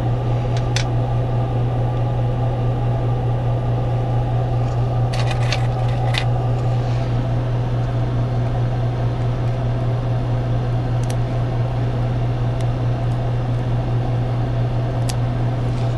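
A steady low machine hum at an even level, with a few light clicks scattered through it.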